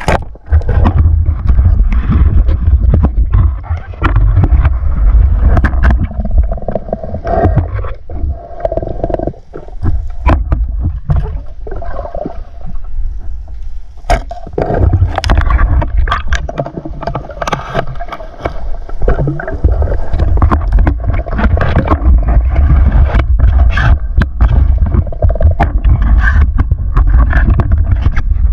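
Water sloshing and rumbling against a camera moved through shallow seawater among seagrass, with frequent scrapes and knocks from handling. It eases for a few seconds in the middle.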